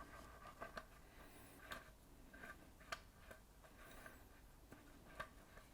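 Faint scattered clicks and ticks of a caster wheel's long threaded stem being turned by hand into a steel table leg. The clearest click comes about three seconds in.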